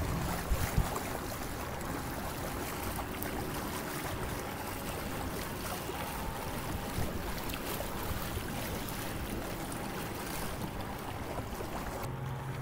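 Water rushing and splashing along a kayak's hull as it runs under electric trolling-motor power, with wind on the microphone. A couple of knocks come just after the start, and a low steady hum comes in near the end.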